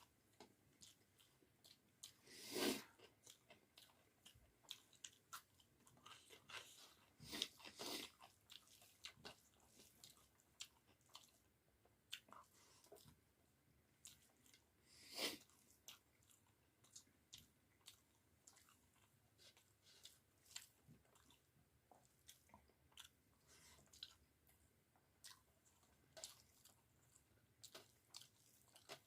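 Close-up eating sounds: steady chewing with small wet mouth clicks, and three louder crunchy bites, about two, seven and fifteen seconds in.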